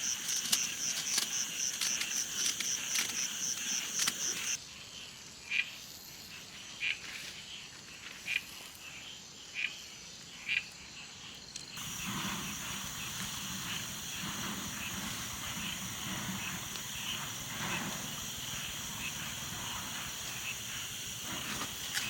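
Insects trilling in a fast, pulsing, high-pitched chorus. After a cut, a few short chirps sound one at a time over a quiet background, and after a second cut a steady hiss runs on.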